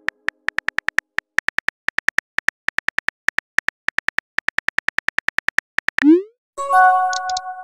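Simulated phone-keyboard typing clicks, about six a second, as a text message is typed out. About six seconds in they stop, and a short rising whoosh marks the message being sent, followed by a brief synthesized chime of several held tones.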